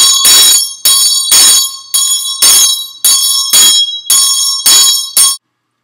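Metal hand bell shaken hard, ringing loudly at about two strokes a second, cutting off suddenly near the end.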